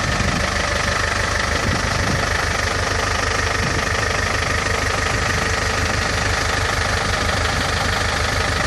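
A UD 1400 truck's diesel engine idling steadily, with a constant pitched hum over an even low throb.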